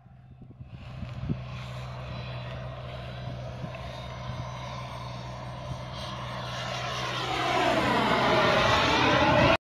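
Radio-controlled model jet flying, its engine sound building steadily and loudest near the end as it passes close, with a sweeping rise and fall in tone during the pass. It breaks off abruptly at the end.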